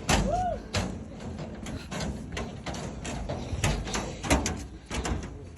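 Footsteps of hikers climbing a trail, irregular steps about one or two a second.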